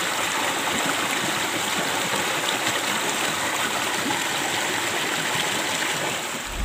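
River water rushing between rocks in a steady, unbroken rush.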